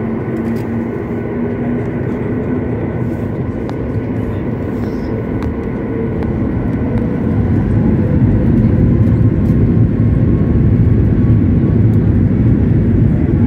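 Jet engine noise heard from inside the cabin of a SpiceJet Boeing 737 on a wet runway. It is a steady rumble that grows louder from about six seconds in.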